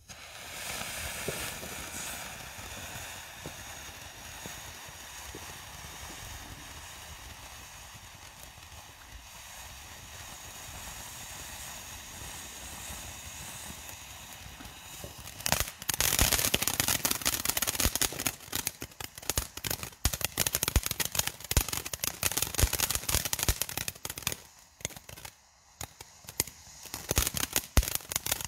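Nico 'Funky Monkey' category F2 fireworks fountain combination burning: a steady hiss of sparks, then from about halfway through a dense, louder crackling. The crackling dies down briefly near the end, then starts again.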